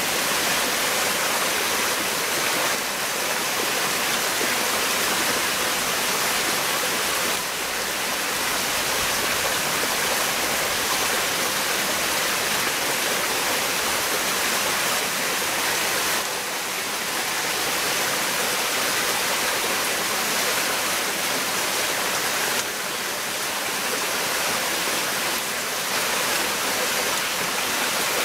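Steady rushing of running water, even and unbroken, with a few slight dips in level.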